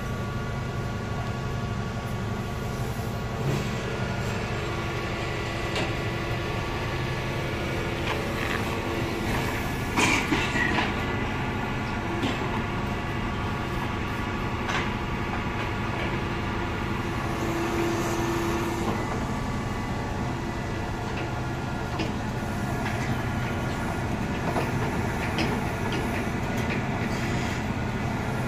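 Lorry engine running steadily to power a Palfinger truck-mounted crane unloading concrete blocks, with a higher hum that comes and goes twice as the crane works. A few sharp knocks about ten seconds in.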